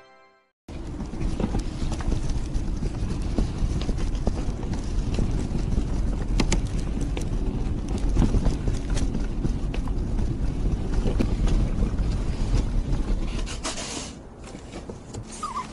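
Pet stroller rolling over pavement: a steady rumble from the wheels with a rattle of small clicks and knocks. It starts after a moment of silence and dies down about fourteen seconds in as the stroller stops.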